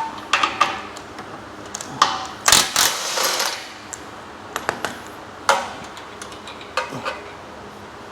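Steel tools and bolts clinking and knocking against a galvanized steel power rack as an upright is unbolted: a string of sharp metal clicks and knocks, with a denser run of clatter about halfway through.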